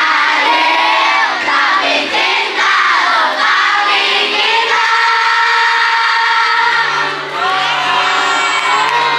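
Music with a group of young voices singing, with crowd noise and shouting mixed in; some notes are held for a second or two around the middle.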